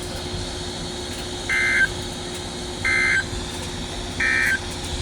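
Emergency Alert System SAME data tones: three short, identical warbling data bursts about 1.4 s apart, the end-of-message code that closes the warning broadcast, over steady radio hiss.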